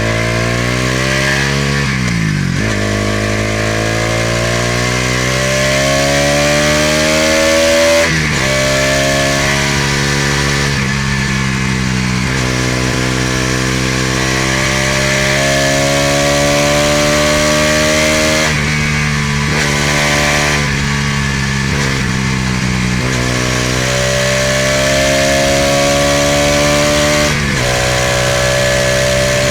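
Bajaj Pulsar NS200's single-cylinder engine and exhaust under way, its pitch climbing and then dropping sharply several times as the rider goes up and down through the gears, with steadier cruising stretches between.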